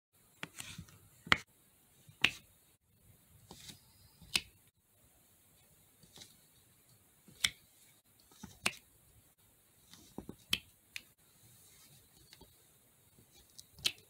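Diamond painting pen setting round drills onto the adhesive canvas: a dozen or so sharp, irregular clicks and taps, roughly one a second, the loudest just over a second in.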